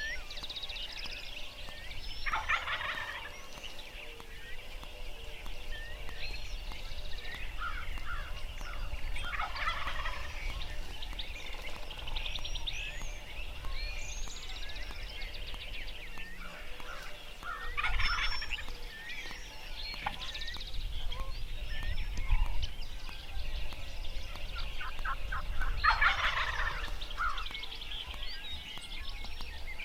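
Wild turkey gobbling four times, about every eight seconds, each gobble a rattling burst. Small birds chirp throughout, over a low rumble.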